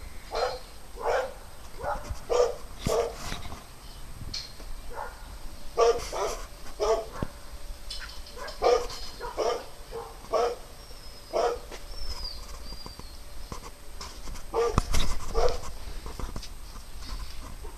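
Dog barking over and over, short high barks coming in quick runs of several with brief pauses between them.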